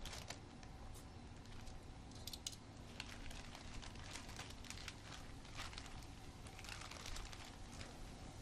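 Faint crinkling of a plastic bag and small clicks of metal tongs as raw chicken breasts are lifted out of the bag, over a faint steady sizzle of olive oil and garlic in a skillet.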